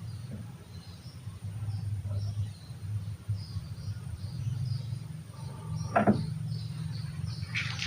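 Stray cat making a low, steady rumbling sound, the strange noise the video is about. Faint high chirping runs around it, and a short sharper sound comes about six seconds in.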